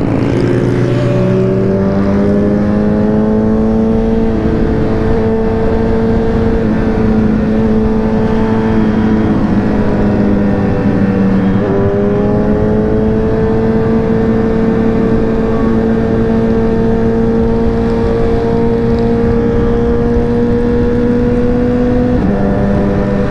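Motorcycle engine running at highway speed, heard from the rider's seat over wind and road noise. Its pitch climbs slowly as it pulls, then steps down sharply about halfway through and again near the end.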